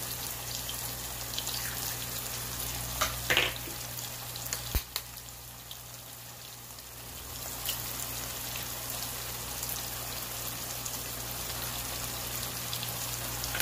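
Onion, tomato, capsicum and eggs frying in oil in a nonstick pan: a steady sizzle with light crackling. A few sharp taps come about three and five seconds in, and the sizzle grows again past the middle as another egg goes into the hot oil.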